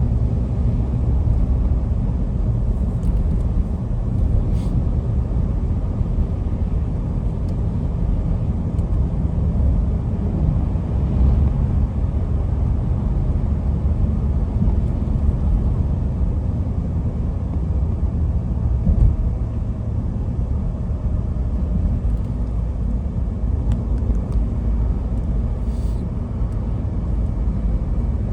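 A steady low rumble, strongest in the deepest bass, with no speech.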